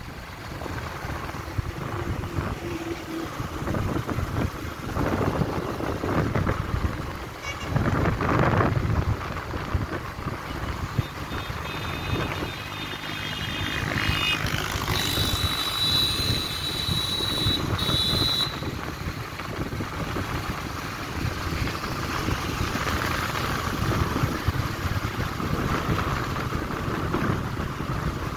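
Road noise from a vehicle travelling along a road: a steady engine and tyre rumble with a couple of louder swells. Midway a high, steady tone sounds for a few seconds and then cuts off.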